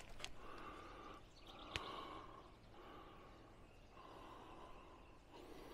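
Faint heavy breathing of a person close to the microphone, a steady run of breaths about a second each, with a single sharp click a little under two seconds in.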